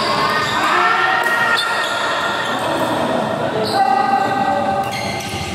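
Badminton hall sounds: a few sharp knocks of racket strikes on a shuttlecock, echoing in a large hall, with players' voices talking and calling.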